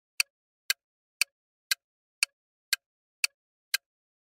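Countdown-timer sound effect: a crisp clock-like tick twice a second, with silence between the ticks, counting down the answer time.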